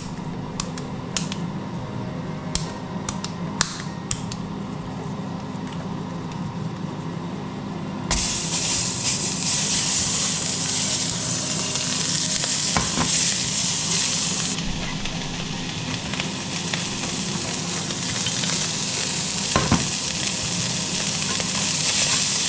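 A ball of ground beef hits a hot, smoking frying pan about eight seconds in and starts sizzling loudly and steadily. Before that there are only scattered light clicks over a steady low hum, and a couple of knocks from handling the pan or spatula come later.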